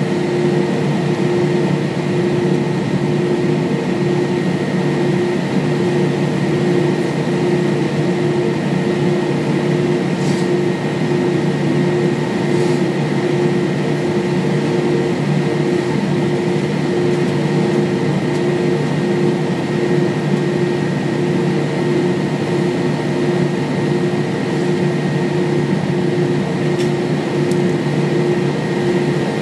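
Steady cabin noise inside an Airbus A320-232 on the ground: its IAE V2500 engines running at idle together with the cabin air conditioning, a constant rushing hum with several unchanging tones.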